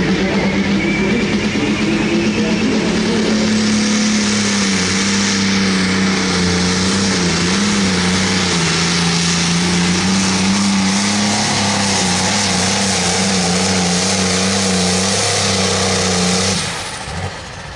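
Limited Pro Stock pulling tractor's turbocharged diesel engine running flat out under load during a pull, its pitch wavering slightly, with a turbo whine rising at the start. The engine shuts off abruptly near the end as the run ends.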